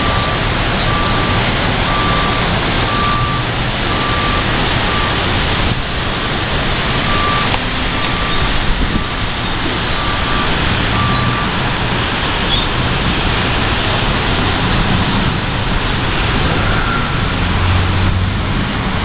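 Steady noise of heavy traffic on rain-soaked roads, with a vehicle's reversing alarm beeping about once a second that stops about two-thirds of the way through.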